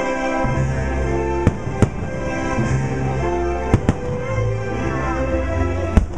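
Aerial firework shells bursting with sharp bangs, a pair about a second and a half in, another pair near the middle and one near the end, over loud show music with long held notes and a deep bass line.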